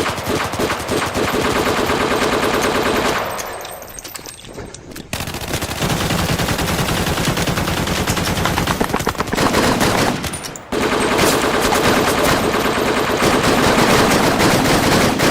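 Sustained automatic gunfire in long rapid bursts, loud and dense. It eases off for a moment about three seconds in and again briefly around ten seconds, then resumes.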